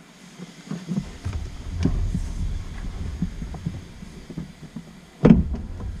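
Person climbing into a low sports car's driver's seat: scattered knocks, rustling and low thuds of body and clothing against the seat and sill, ending about five seconds in with a sharp, heavy thud, the loudest sound.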